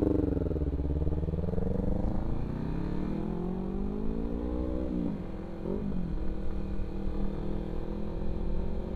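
Sport motorcycle engine accelerating, its pitch climbing steadily through the rev range, then falling sharply at a gear change about five seconds in, with a couple of short blips, before it runs on more steadily. Wind rushes over the helmet-mounted microphone throughout.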